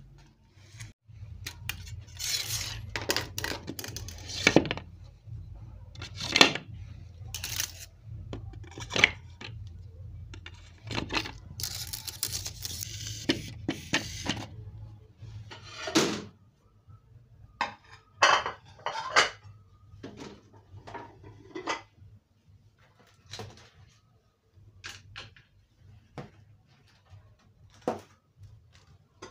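Dishes and cutlery being handled and set down: irregular clinks and knocks of crockery and utensils, some sharp, with a low hum beneath that stops about halfway through.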